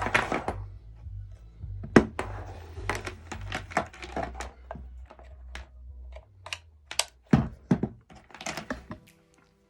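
Irregular sharp clicks and knocks of Speakon cable connectors being handled and plugged into a cable tester, a cluster of them about seven to nine seconds in.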